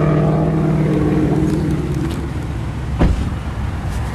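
A steady car engine hum that dies away about two seconds in, then a single thud about three seconds in as the BMW i8's upward-opening butterfly door is shut.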